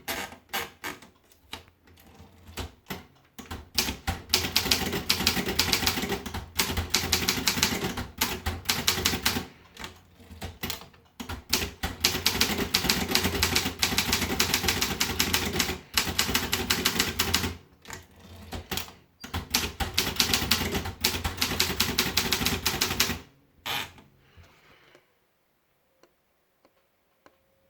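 Optima Elite typewriter being typed on: three long runs of rapid key and typebar strikes, separated by short pauses and a few single strokes, falling quiet about 25 seconds in.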